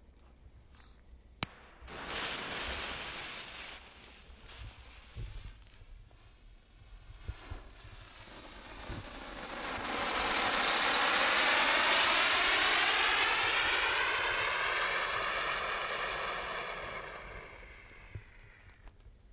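Funke Silberfontäne, a small category 1 silver fountain firework, spraying sparks with a steady hiss that swells to its loudest midway and fades out near the end. Before it, a sharp click, then a quieter hiss for a few seconds.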